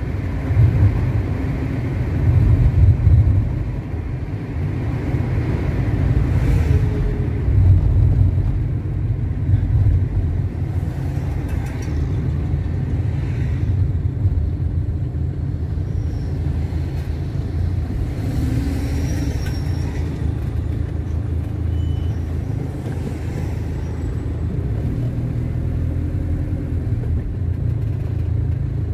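A car driving along a road: a steady low rumble of engine and tyres on the road.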